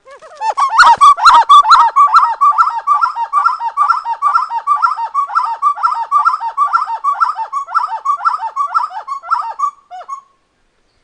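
Spot-winged wood-quail (uru) singing: a long, fast run of evenly repeated low whistled notes at about three a second. It is loudest over the first couple of seconds and stops about ten seconds in.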